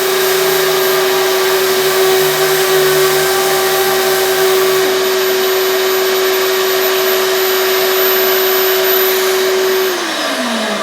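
A 3M pneumatic DA vacuum sander running with its dust-extraction vacuum: a loud, steady whine over a dense rush of air. Near the end the whine slides down in pitch as the motor winds down.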